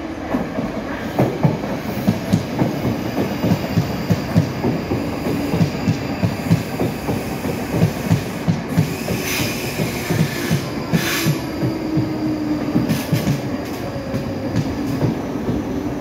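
South Western Railway Class 458 electric multiple unit arriving at the platform, its wheels clicking in a steady run over rail joints, with two brief high wheel squeals a little past halfway.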